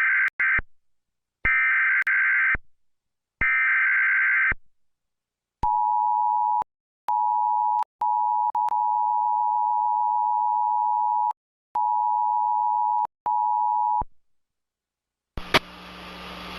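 Emergency Alert System test on a TV: three roughly one-second bursts of digital SAME header data tones, then the steady two-tone EAS attention signal, which cuts out several times with clicks at the breaks, a glitch the uploader blames on the TV. Near the end a click and a steady hum with hiss come in.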